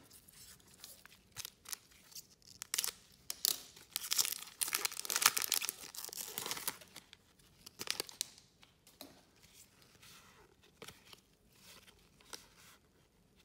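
Foil trading-card pack wrapper being torn open and crinkled by hand, loudest from about four to seven seconds in, then a few scattered soft clicks and rustles as the cards are handled.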